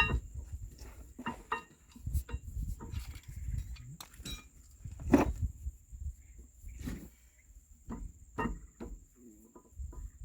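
Scattered knocks and clinks of metal tools and parts being handled, about a dozen irregular strikes, the loudest about five seconds in. A steady high insect whine runs behind them.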